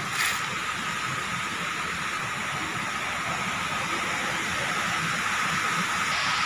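Steady rushing of a rain-swollen stream running close by, with a faint steady high tone under it.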